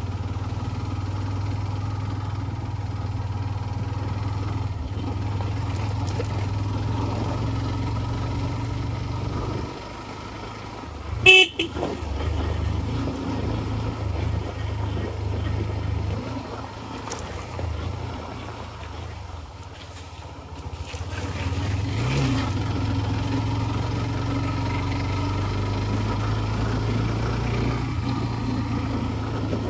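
TVS Ntorq 125 scooter's single-cylinder engine running steadily on the move, easing off twice, with one short horn toot about eleven seconds in.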